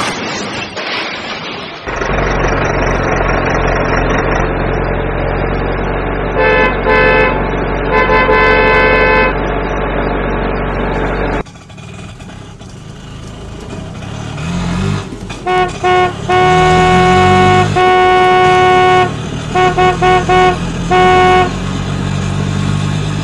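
Vehicle sound effects: an engine running steadily with two horn honks, then after a sudden change a second engine with short rising revs and a string of horn honks, some short, some held. Water splashes briefly at the start.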